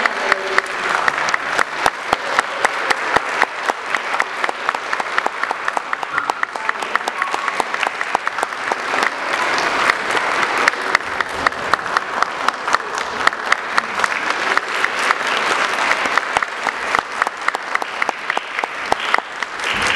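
Audience applauding steadily, a dense patter of many hands, with loud single claps standing out several times a second.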